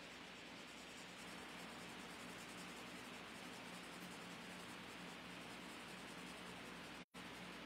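Faint scratching of a marker colouring on cardstock over a steady hiss. The sound cuts out completely for an instant about seven seconds in.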